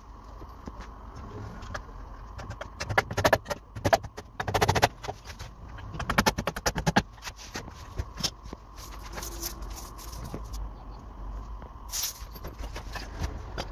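Timber props and planks of staircase formwork knocking and rattling against each other as they are handled and shifted, in several short clusters of sharp wooden knocks.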